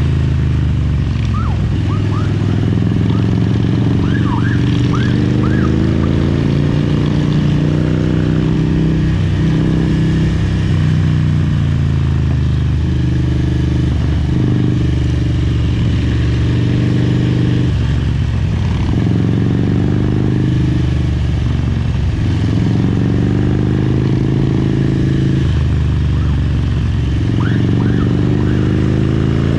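A 2003 Harley-Davidson Road King's fuel-injected Twin Cam 88 V-twin engine and exhaust under way. Its pitch climbs under acceleration and drops back on gear changes or throttle-off, over and over, every few seconds.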